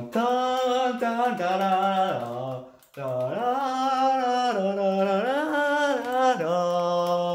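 A teenage boy singing a tune in two phrases, with a short break about three seconds in; the notes are held and step up and down.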